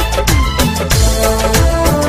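Instrumental interlude of a Bhojpuri pop song: a steady drum beat with repeated drum strokes sliding down in pitch, under a held melodic line.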